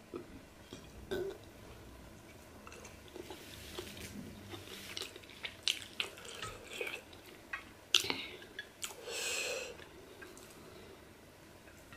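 Close-miked chewing of pork, with scattered wet mouth clicks and smacks, and a breath about nine seconds in.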